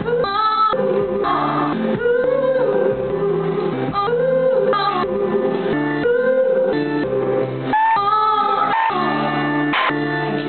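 A woman singing live while strumming an acoustic guitar.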